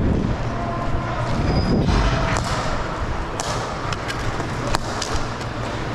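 Cosom hockey play: plastic sticks knocking the ball and each other on a gym floor, a handful of sharp knocks over a steady background of game noise.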